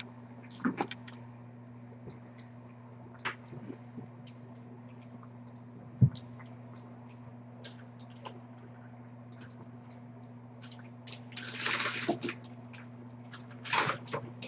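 A cat eating wet food from a stainless steel bowl: soft wet chewing and lapping with many small scattered clicks, over a steady low hum. A sharper knock comes about six seconds in, and short breathy rustles near the end.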